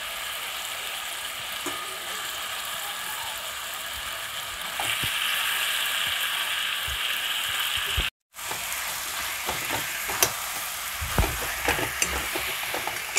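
Boiled water spinach (kalmi shak) sizzling in hot oil in a metal kadai. The sizzle grows louder about five seconds in, then breaks off briefly. After that a spatula scrapes and knocks against the pan as the greens are stirred.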